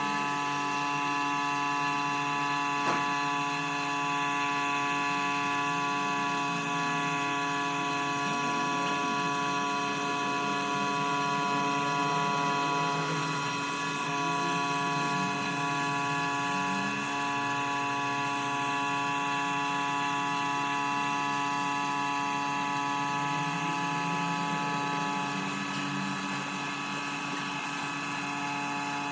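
A machine motor running steadily at a constant pitch, with one short knock about three seconds in.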